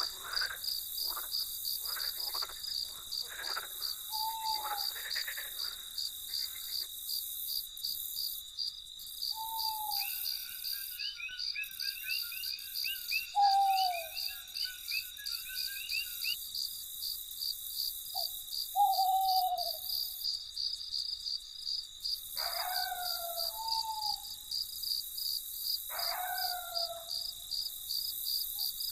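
Crickets chirping in a steady, fast-pulsing high trill. Over it, an animal gives short falling calls every few seconds, and a run of rapid chittering calls sounds from about a third of the way in to about halfway.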